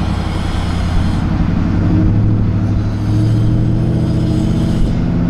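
A vehicle engine running steadily while driving, giving a steady low hum.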